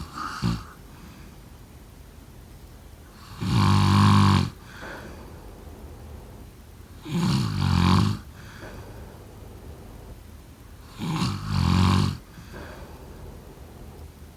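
Someone snoring in a steady rhythm: three loud snores of about a second each, one roughly every four seconds, with the end of another right at the start.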